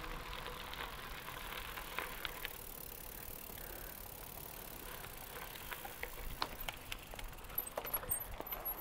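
Bicycle riding along a road: a faint steady rush of tyre and wind noise with scattered small irregular clicks and ticks.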